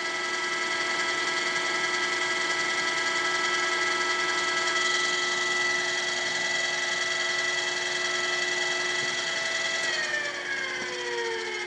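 OOYA RE2-1300A radial arm drill press running its spindle at its slowest speed, 38 RPM: a steady whine of several tones from the 5 HP spindle drive and gearbox. About ten seconds in, most of the whine falls in pitch as the drive slows, leaving one steady hum.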